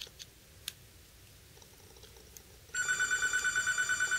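A phone ringing from about three seconds in: a loud electronic ring that pulses rapidly, about eight beats a second. Before it, a few faint clicks.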